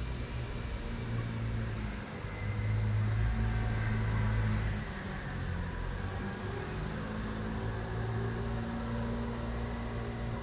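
A motor running with a low, steady hum, swelling louder for a few seconds about two seconds in, then settling back.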